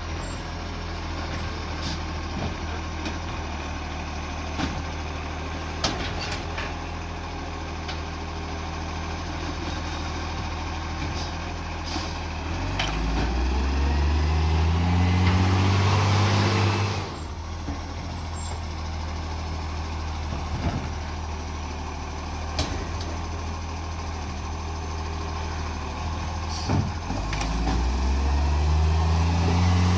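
Recycling truck's diesel engine with an exhaust leak, idling steadily with scattered sharp ticks. About halfway through it revs up for a few seconds and drops back suddenly, then revs up again near the end.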